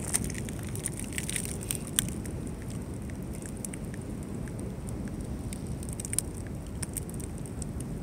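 Rocky seashore ambience: a steady low rumble with scattered faint crackling clicks.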